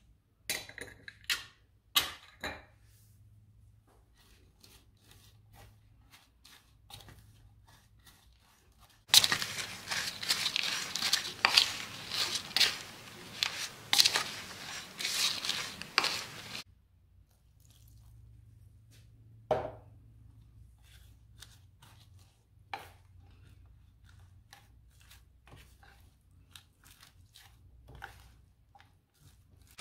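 A plastic spatula stirring flour into shredded cabbage and carrot in a glass dish: a run of crunchy scraping and rustling for about seven seconds in the middle, with scattered light clicks and taps against the glass before and after.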